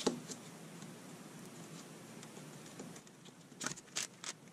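Small nylon parts handled on a clear plastic sled: a light click at the start, then a few short clicks and taps in quick succession near the end, over a faint hiss.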